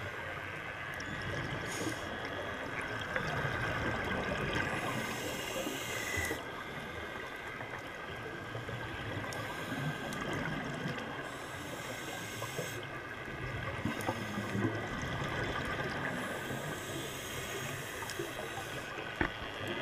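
Scuba regulator breathing heard underwater: a breath of hiss and bubbling about every few seconds, over a steady faint whine.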